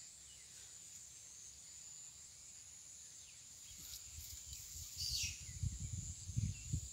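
A steady high-pitched drone of insects, with a few short falling squeals about four to five seconds in, and a low rumble on the microphone that grows louder in the second half.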